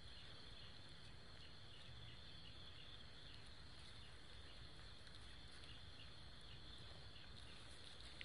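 Near silence: faint, steady outdoor background hiss with a thin high band.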